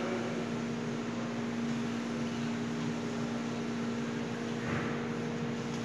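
Steady mechanical hum of kitchen equipment, with a constant low tone under a hiss, and a brief soft handling sound near the end.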